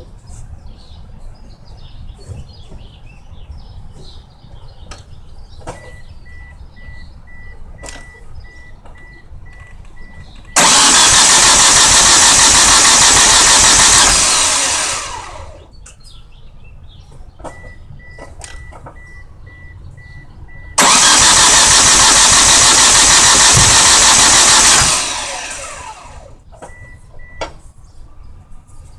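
The 1998 Mitsubishi Eclipse GST's turbocharged 2.0-litre four-cylinder is cranked twice by the starter for about four seconds each time. Both times it turns over but never catches, then trails off as the key is let go: the engine cranks but won't start. Before each attempt the car's warning chime beeps quickly.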